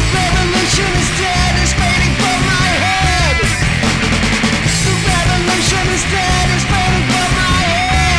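Loud punk rock band recording: a heavy, driving bass and drum low end with crashing cymbals and distorted guitar. Short swooping pitch glides run through it, with no clear words.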